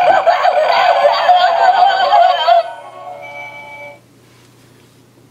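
An animated clown candy bowl Halloween prop's built-in sound chip plays electronic music with a wavering synthetic voice. The sound cuts down about two and a half seconds in, and a few fainter held tones linger until about four seconds in. A faint low hum remains after that.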